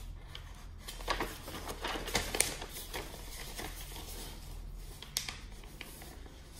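Sheets of printed paper rustling and crackling as they are picked up and turned over, in a dense run of sharp crackles between about one and three seconds in and one more near the end.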